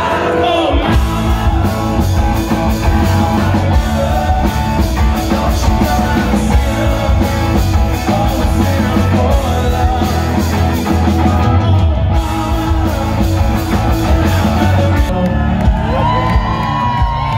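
Rock band playing live and loud through a club PA: electric guitar, drums and a singing voice. There are shouts from the crowd, and sliding high tones near the end.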